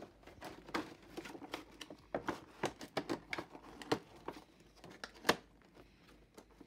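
Cardboard Funko Pop box being opened by hand: an irregular run of crinkling, scraping and small clicks as the flap is worked loose, with one sharper click about five seconds in.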